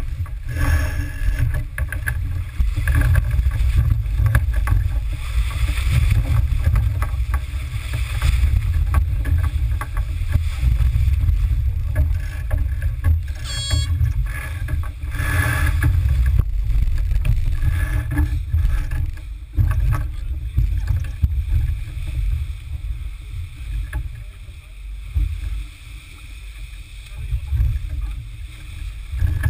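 Smaragd keelboat under sail, with a heavy low rumble of wind and water that rises and falls, and scattered knocks from crew working in the cockpit. About fourteen seconds in there is a brief rapid clicking.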